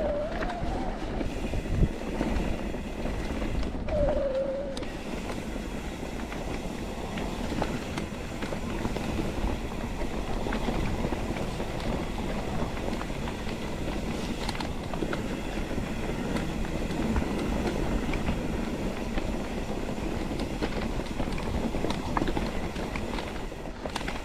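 Mountain bike ridden down a dirt single-track trail: a steady rumble of tyres over the ground, with the bike rattling and clattering over bumps and roots.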